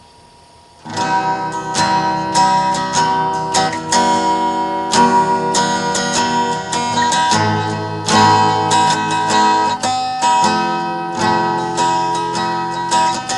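Acoustic guitar playing a strummed chord intro, starting about a second in.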